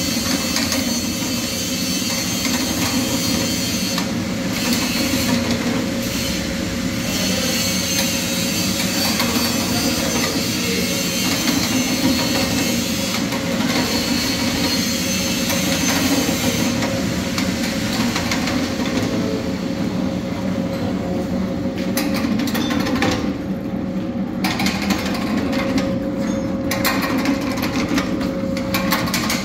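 Hand-cranked betel nut (supari) cutting machine running, with a continuous mechanical clatter from its gears and blade as it slices the nuts. In the second half the hiss eases and separate clicks stand out.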